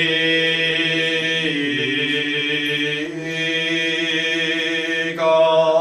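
A Buddhist priest's solo male voice chanting shomyo, the sung verses that close a Nichiren Shu ceremony. He holds long, sustained notes, with the pitch dipping and sliding in the first half and shifting to a new note about five seconds in.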